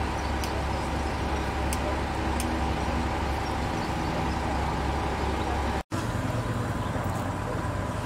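Heavy diesel engines of a railway breakdown-crane train running steadily, a low rumble with a faint steady whine, with a few light metallic clicks in the first seconds. About six seconds in it cuts off abruptly and gives way to a different steady low hum.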